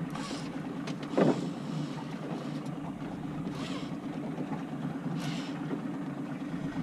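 A boat's motor running steadily, with one short knock about a second in.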